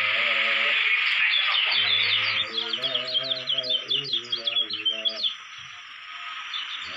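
Kecial kuning, a yellow white-eye, singing from its cage: a fast run of short, high chirping notes that breaks off about five seconds in. Under it is a steady hiss that drops away about two and a half seconds in, and a low background melody.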